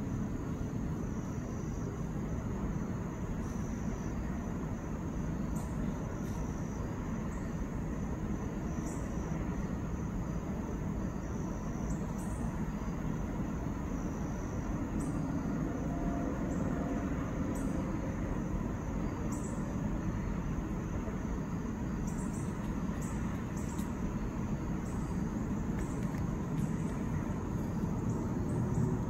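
Insects singing in the woods: a steady high drone that swells in short pulses every two or three seconds, over a low, even rumble.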